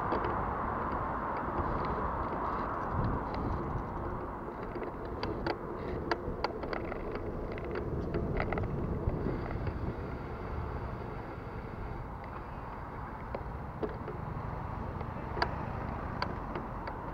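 Bicycle riding along a city bike lane: a steady rumble of tyres, wind and traffic, with a cluster of short clicks and rattles a few seconds in and a couple more near the end. The rattling fits a bicycle whose bottom bracket is worn out and clatters like a bucket of bolts.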